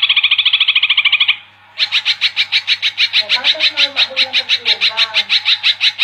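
A caged cucak ijo (green leafbird) sings a fast chattering run of rapidly repeated notes. A short burst is followed by a brief break, then a long unbroken run starting just under two seconds in.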